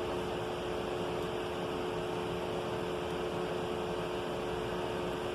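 A steady mechanical hum, two held tones over an even hiss, with no change.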